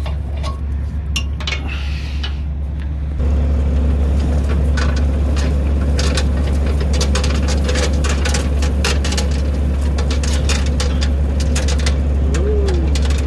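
Log truck's diesel engine running steadily, stepping up to a louder, faster speed about three seconds in, with scattered metallic clinks from the load chains being unhooked.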